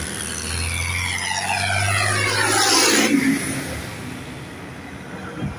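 Tractor diesel engine and tyres passing close by, the engine note and a whine falling in pitch as it goes past. About three seconds in the sound drops away abruptly to a quieter, more distant engine.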